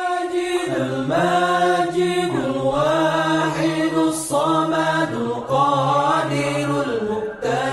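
Outro music: a chanting voice singing long held notes that slide between pitches, over a steady low drone.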